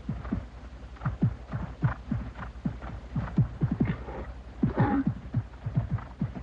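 A horse's hooves thudding on the soft footing of an indoor showjumping arena as it canters, several uneven beats a second, over a steady low hum.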